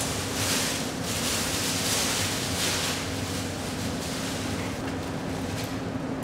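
Plastic bag and clothes rustling in swells for about the first three seconds as laundry is pushed into a front-loading washer drum, over a steady low machine hum.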